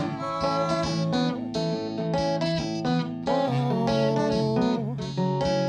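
Instrumental passage of a live pop song: a steel-string acoustic guitar strummed with a pick, under a melody line that slides between notes a couple of times.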